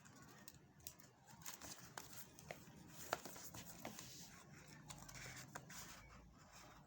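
Faint handling noise: scattered light clicks and soft rustling, as of small objects or packaging handled by hand.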